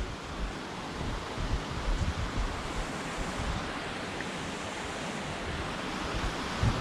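Wind blowing across the microphone: a steady rushing hiss, with low buffeting thumps in the first couple of seconds.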